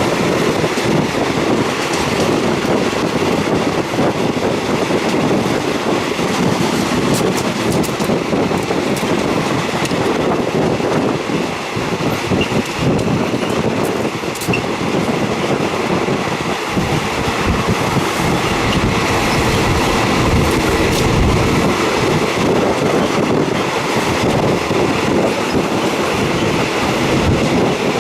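Passenger train running on the track, heard from inside a third-class carriage with the windows open: a steady rumble of wheels on rails with scattered clacks from the rail joints.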